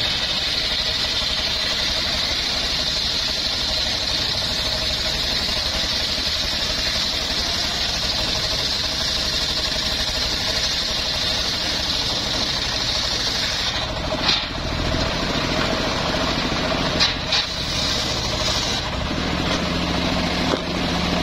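Circular sawmill blade ripping lengthwise through a hard johar log, a steady high-pitched cutting whine over the machine's engine running. About 14 seconds in the cut ends; a few sharp knocks follow as the timber is handled, and the blade and engine run on without load.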